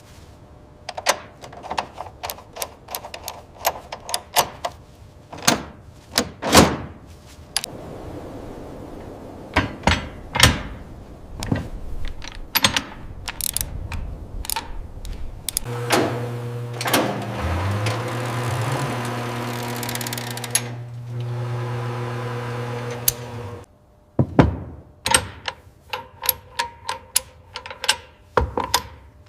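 Workshop tool sounds: many short sharp clicks and knocks. In the middle a machine hum runs steadily for about eight seconds, with a brief rise in pitch just after it starts, then cuts off.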